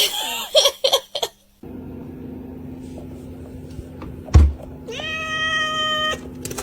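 A domestic cat gives one long, even meow lasting about a second and a half, near the end, just after a single loud thump. A low steady hum runs underneath from about a second and a half in.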